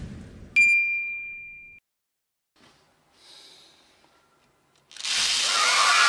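A single bell-like ding about half a second in that rings out over about a second. Then, about five seconds in, a loud rattling rush as a plastic bottle full of small plastic beads is tipped over and the beads pour out and scatter across a hard tabletop.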